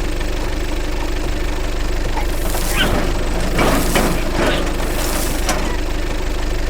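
A vehicle engine running steadily with an even low hum, with several short sharp sounds over it between about two and five and a half seconds in.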